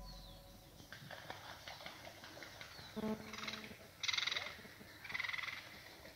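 Birds calling faintly by a lake: small chirps throughout, a low honk-like call about three seconds in, and raspy calls around four and five seconds in.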